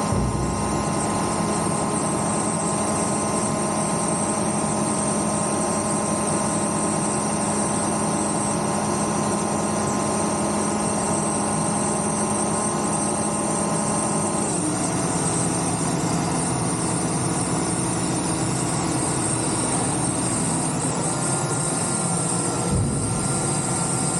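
A large vehicle engine running steadily, its note shifting slightly about halfway through.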